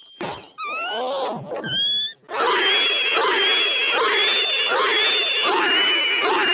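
Edited cartoon sound effect audio: after a click, a few short pitched cries slide downward, then a chopped creature-like cry is looped in a steady stutter, repeating about every two-thirds of a second.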